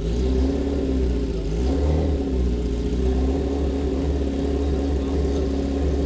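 Sportbike engine running at the drag-strip start line, its revs rising and falling a little as the throttle is worked while it waits to launch.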